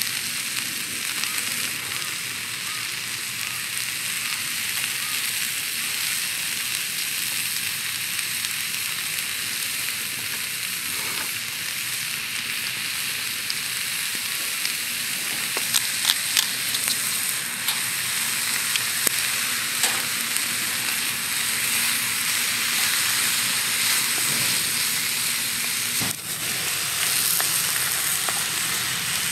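Sliced pork, cabbage and carrot sizzling steadily in a hot frying pan on a camp stove. There are a few light clicks about halfway through, and the food is stirred with chopsticks near the end.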